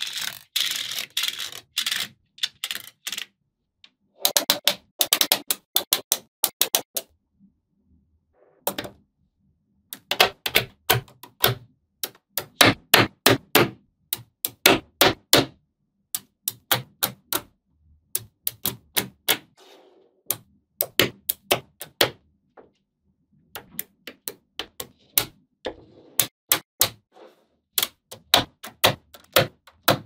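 Small magnetic balls clicking as blocks and rows of them are snapped onto a magnetic-ball structure, in quick runs of sharp clicks with short silent gaps between runs.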